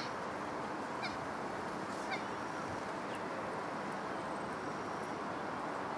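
Short, slightly falling waterbird calls, about one a second through the first half, over a steady background hiss.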